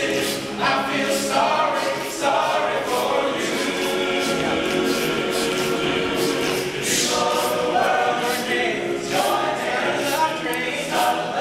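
All-male a cappella group singing: a lead voice over backing voices in close harmony, with a steady beat.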